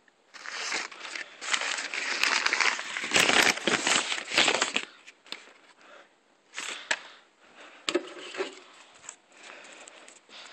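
Crumpled paper crinkling and rustling as it is handled and pulled out of a Christmas stocking. It is dense and loudest in the first five seconds, then turns into scattered rustles with a few sharp clicks.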